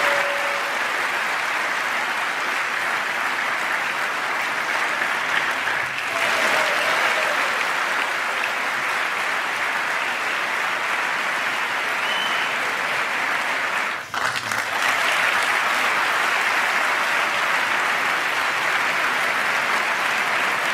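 A large audience of several hundred people applauding steadily, with a brief dip about two-thirds of the way through before the clapping carries on.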